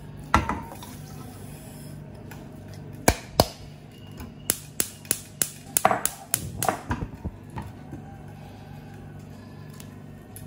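Water poured briefly into a cooking pot to start sugar syrup, then a run of sharp clicks and knocks from pot, bowl and stove being handled, over a steady low hum.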